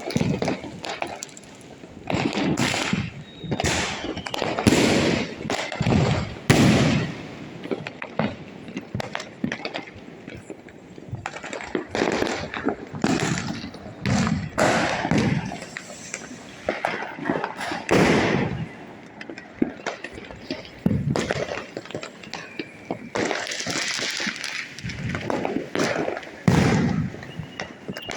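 Diwali firecrackers and fireworks going off: a long irregular run of sharp bangs and pops, with a hissing stretch near the end.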